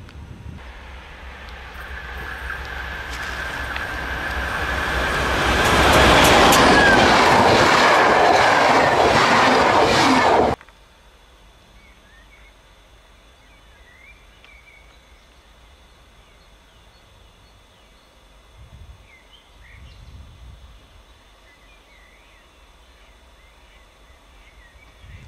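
A diesel-hauled train approaches and runs past close by, its wheel and rail noise growing louder for about six seconds and then holding loud. The sound cuts off abruptly about ten seconds in, leaving a quiet background with faint chirps and a distant low rumble.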